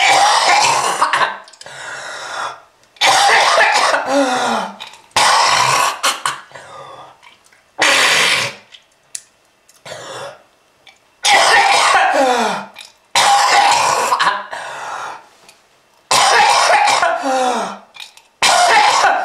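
A person coughing and hacking hard in repeated harsh fits, about one every two seconds, with a strained voice falling in pitch through each fit. It is shown as a heavy smoker's cough.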